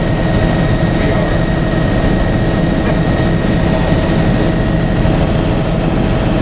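Helicopter cabin noise in flight: a steady, loud drone of engine and rotor with a thin, high, steady whine over it.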